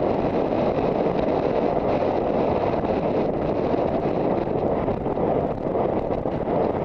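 Steady wind buffeting the microphone of a rider's head-mounted camera, a dense rushing noise with no clear rhythm.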